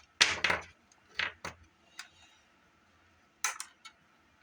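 A few sharp clicks and knocks from a small plastic Sony Walkman cassette player being handled, the loudest just after the start. More follow around one and two seconds in, and a quick pair comes about three and a half seconds in.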